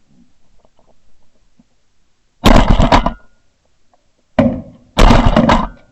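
Three shotgun shots, about two seconds in, about four and a half seconds in and again half a second later, each loud and sharp with a short ringing tail.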